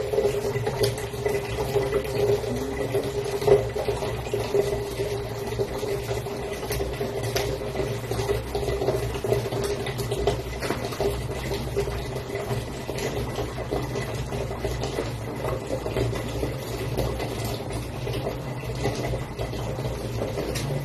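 A steady kitchen rush and hum, with scattered light taps and clicks of a knife and pear being handled while the pear is cut and cored.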